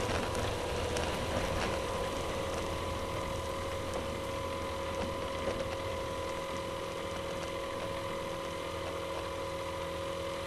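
Avid kit-built light aircraft's engine idling while taxiing, a steady drone with a constant whine above it.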